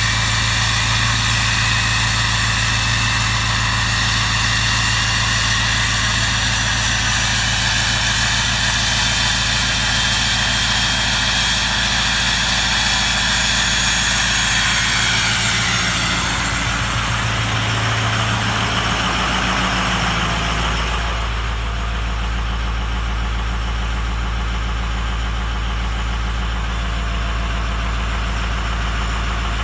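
Ford 6.0 Powerstroke V8 turbo-diesel idling after a cold start, with a loud high turbo whistle over the engine. About two-thirds of the way through the whistle fades out and the engine drops to a lower, quieter idle, the sign of its cold-start warm-up mode ending.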